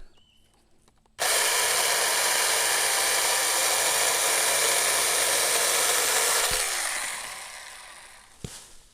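24-volt cordless mini chainsaw with a 4-inch bar cutting through a tree limb, starting abruptly about a second in and running steadily for about five seconds. It is then released and winds down over a second or two, with a sharp click near the end.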